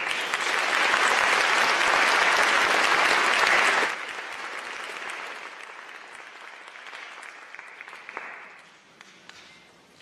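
Audience applauding, loud at first, then dropping off sharply about four seconds in and fading away over the next few seconds.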